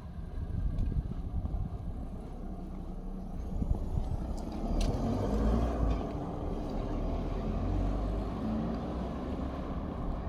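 An engine running close by, growing louder about four seconds in and then holding steady.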